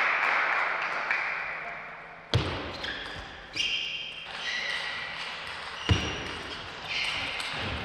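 Table tennis play: sharp knocks of the ball and paddles a second or more apart, two of them with a heavier thud, some followed by brief high ringing tones.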